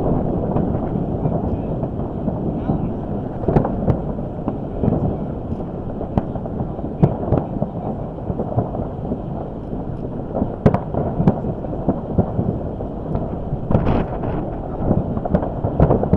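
Distant fireworks booming in a continuous rumble, with sharp cracks now and then, over heavy wind buffeting the microphone.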